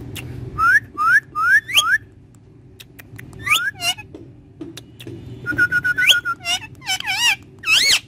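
Male Indian ringneck parakeet whistling: four quick rising whistles, then a few more, a held note that sweeps upward, and a run of warbling whistles near the end.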